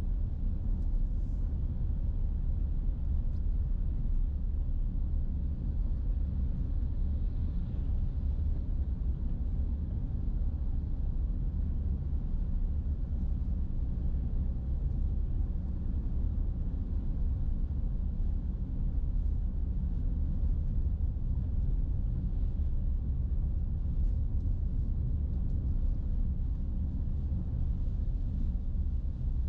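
Car driving on a wet road, heard from inside the cabin: a steady low rumble of engine and tyres. Faint ticks of rain hitting the windshield come near the end.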